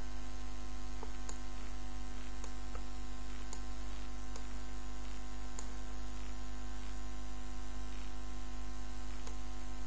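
Steady electrical hum, a constant low tone with fainter tones above it, with a few faint clicks scattered through.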